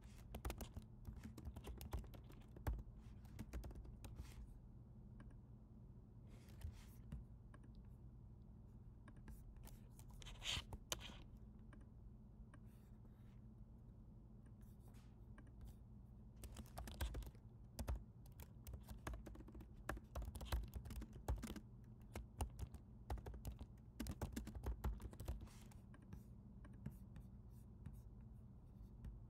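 Computer keyboard typing in short bursts of quick key clicks, the longest run in the second half, over a faint steady low hum.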